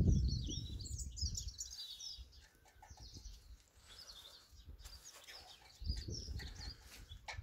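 Small birds chirping and twittering in the background. Under them, low rumbles and a few knocks come from a spanner being worked on the exhaust manifold nuts of a Gardner six-cylinder diesel.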